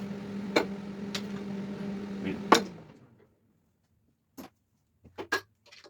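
A steady hum that fades out about three seconds in, with scattered sharp metallic clicks and knocks of engine parts and tools being handled, the loudest about two and a half seconds in and a few more knocks near the end.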